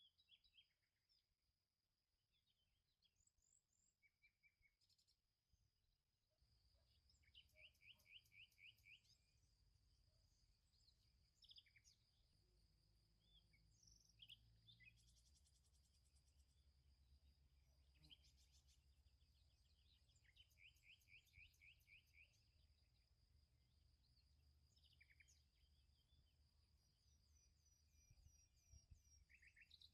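Very faint outdoor ambience: scattered bird chirps and trills over a steady high insect drone, with a low rumble coming in about six seconds in.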